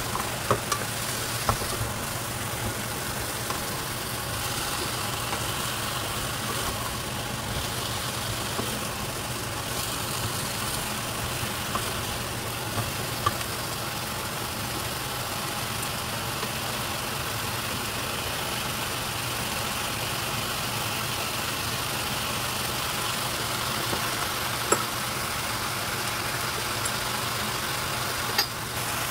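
Steady hum and hiss of a pan of chopped bottle gourd cooking on a gas stove, with a few short clicks of a wooden spatula against the pan.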